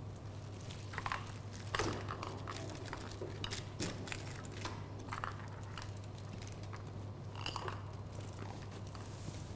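Kittens playing on blankets with toys: scattered rustling, crinkling and soft knocks over a steady low hum.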